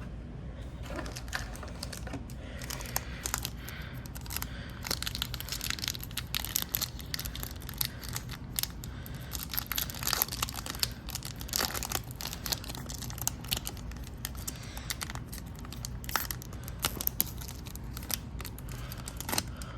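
Hockey trading cards and their packaging being handled: irregular crinkling and rustling with light clicks and snaps, over a steady low hum.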